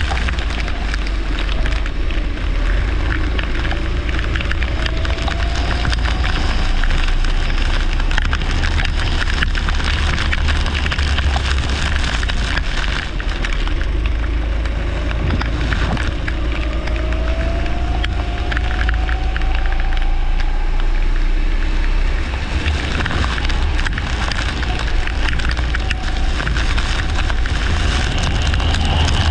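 Leisure kart's engine heard through an onboard camera, its note rising twice as the kart accelerates. A heavy low rumble and crackling noise from wind and vibration on the microphone run under it.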